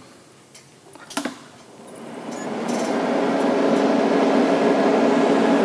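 A click as the TIG welding machine is switched on, then its cooling fan spins up over about two seconds to a steady hum.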